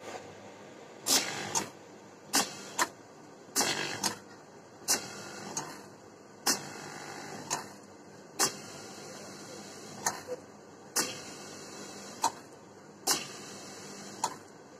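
Rewound single-phase overlock sewing-machine motor test-running with a steady whir, with sharp clicks about once a second at uneven spacing.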